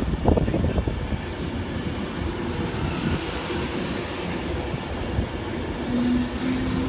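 Class 390 Pendolino electric train running along the platform, a steady rumble with a hum from its drive, and wind buffeting the microphone in the first second.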